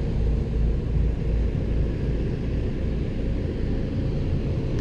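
Steady low drone of the running Onan 4000 generator and the rooftop air conditioner it powers, heard from inside the motorhome.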